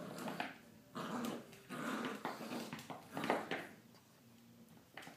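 Three-month-old Staffordshire Bull Terrier and Miniature Australian Shepherd mix puppy growling in play, in four or five short bursts while it worries a rubber tire toy; the growls die away a little before four seconds in.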